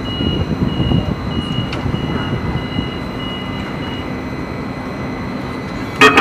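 Hudson-Bergen Light Rail car's warning beeper, a high beep repeating about twice a second for about four seconds over the steady rumble of the waiting tram, signalling that the doors are closing before departure. Near the end comes a loud, sharp, ringing clang.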